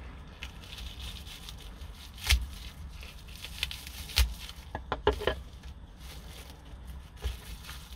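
Plastic wrap on a block of cheese crinkling and tearing as a knife slits it open and fingers peel it back, with a few sharp clicks and knocks.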